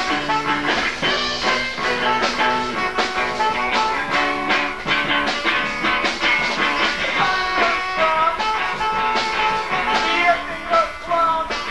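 Live rock band music with guitar, a song in full swing.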